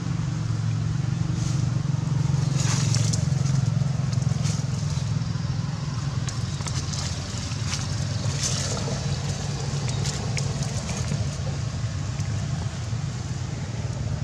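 Dry leaves and thin branches crackling and rustling in bursts as a baby monkey climbs and tugs on vines, over a steady low hum.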